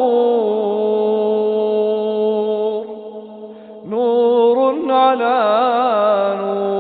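A male reciter chanting the Quran in the melodic tajwid style, stretching a vowel into one long held note. About three seconds in he breaks off briefly for breath, then resumes with a wavering, ornamented melisma.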